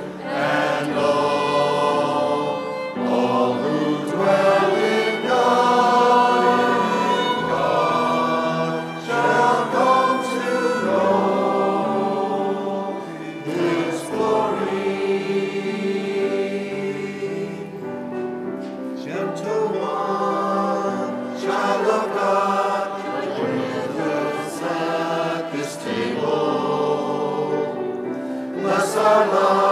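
Church choir of men and women singing a hymn in long held phrases, with brief pauses between lines.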